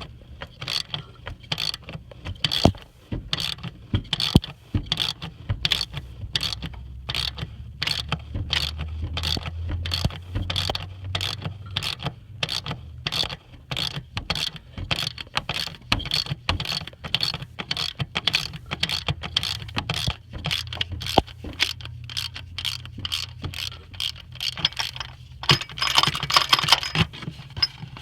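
Ratchet wrench clicking steadily, about two clicks a second, as it turns the puller that draws the old injector cup out of a Ford 6.0 diesel's cylinder head, with a low hum underneath. A louder burst of metallic rattling comes near the end, as the cup starts to come free.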